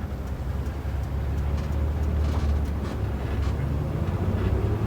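Intercity bus engine droning as heard from inside the cabin, its note stepping up about three and a half seconds in as the bus pulls ahead.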